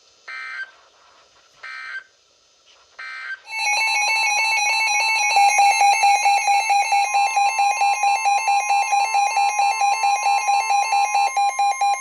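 Emergency Alert System broadcast: three short squawks of digital alert data, the coded bursts that close a warning. From about three and a half seconds in, a loud two-tone electronic attention signal follows, pulsing rapidly.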